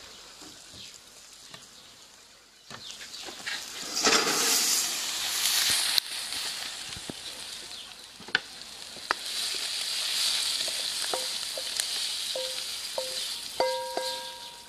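Oyster mushrooms sizzling in oil in a hot wok, with a wooden spatula clicking and scraping against the pan as the food is stirred and tipped out. The sizzle swells about four seconds in and again from about nine seconds, and a few short pitched notes sound near the end.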